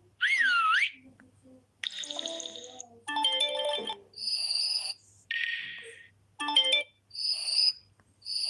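Samsung Galaxy phone ringtone playing: a quick warbling whistle-like glide at the start, then a run of short electronic chimes and blips, about one a second.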